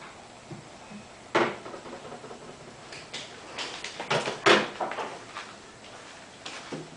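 An alarm clock being shaken and knocked about, giving irregular clattering knocks: a sharp one about a second and a half in, then a cluster of knocks a few seconds later.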